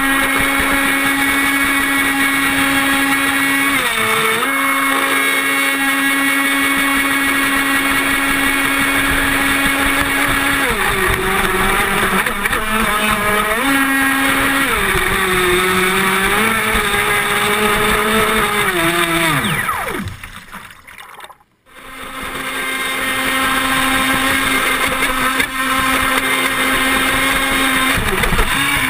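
ProBoat radio-controlled speedboat's motor running at speed with water spray and hull noise, heard from on board. Its steady pitch dips several times. About twenty seconds in, the sound cuts out almost completely for a second or so, then the motor picks up again.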